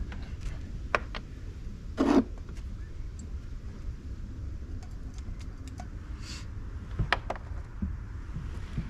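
Scattered clicks and knocks of car parts and tools being handled during radiator work, the loudest a short clunk about two seconds in. A steady low rumble runs underneath.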